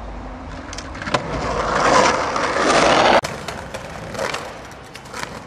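Wheels rolling on pavement: a rushing noise that grows louder and then cuts off sharply about three seconds in, with a few sharp clacks.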